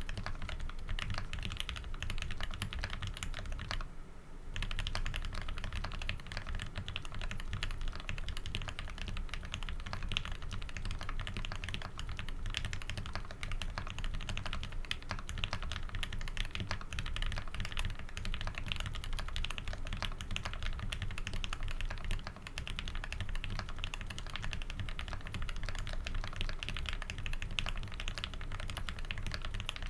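Fast, continuous typing on a custom 60% mechanical keyboard (Tx60v2, brass plate, PBT keycaps) with lubed Cherry-top Tealios v2 linear switches: a steady stream of keystroke clacks, with brief pauses about four seconds in and again about twenty-two seconds in.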